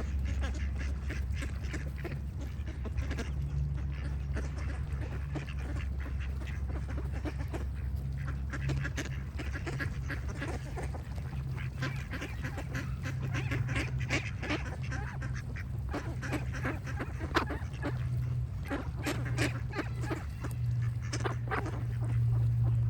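Ducks quacking in quick, repeated calls, over a steady low hum.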